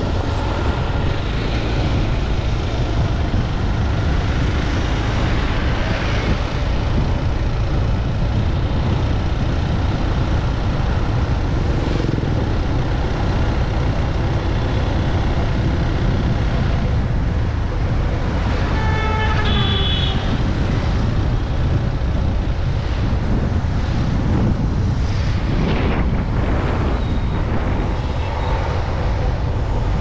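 Steady road and traffic noise heard from a vehicle moving along a road, a low rumble throughout. A horn beeps briefly about two-thirds of the way in.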